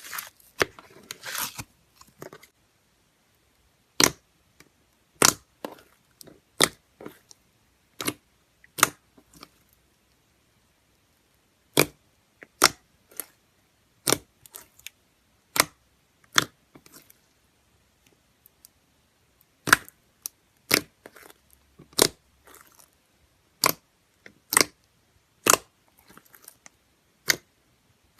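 Clear slime being pressed and poked, giving a string of short, sharp clicks and pops at irregular intervals, about one a second, with a brief crackly stretch near the start.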